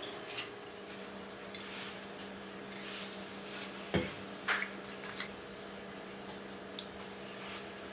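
Kitchen prep sounds: scattered clinks and knocks of dishes and utensils, the loudest a few in quick succession about halfway through, over a faint steady low hum.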